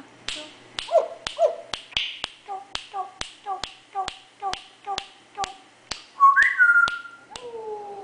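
African grey parrot clicking rapidly, about three sharp clicks a second, with a short repeated note on many of them. A rising whistle comes near the end, then a falling note.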